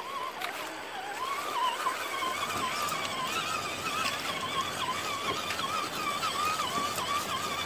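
1:10 scale RGT Rock Cruiser RC crawler's electric motor and gearbox whining, the pitch wavering up and down as the throttle changes while it crawls over river rocks.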